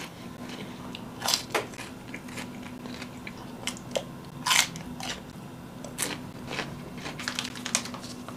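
Close-miked eating sounds: a person biting and chewing food, with irregular crunches and smacks.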